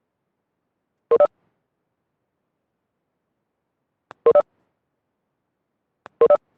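Short electronic double beep, sounding three times a few seconds apart, with silence in between.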